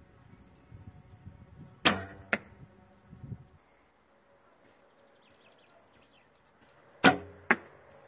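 Two shots from a recurve bow. Each is a sharp slap of the string on release, with a brief ringing hum from the string and limbs, then a second, weaker crack about half a second later as the arrow hits the target. The first shot, about two seconds in, is with a Dacron B55 string; the second, about five seconds later, is with a BCY X99 string.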